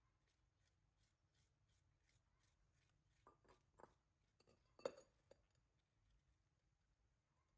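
Near silence with faint, even ticking, about three a second, then a few soft clicks, one louder about five seconds in.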